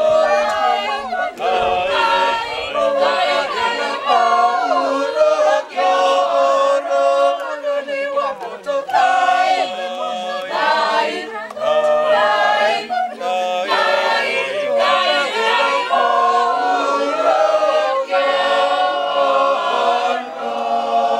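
A Catholic choir singing a hymn in Kikuyu, many voices together over a steadily held low note.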